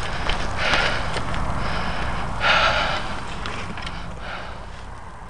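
A man breathing heavily close to the microphone, with two loud exhalations, about half a second in and about two and a half seconds in, over a steady low rumble.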